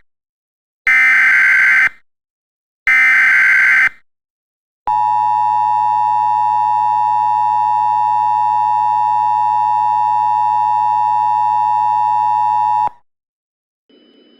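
Emergency Alert System SAME header: two one-second bursts of digital data tones, then the NOAA Weather Radio 1050 Hz warning alarm tone held steady for about eight seconds before cutting off, with faint radio hiss near the end. The sequence signals a tornado warning about to be read.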